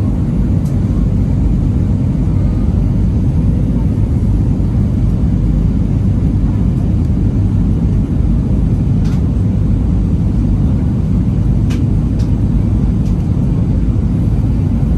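Steady low rumble of an Airbus A320-200's engines and airflow heard inside the passenger cabin, with a few faint ticks in the second half.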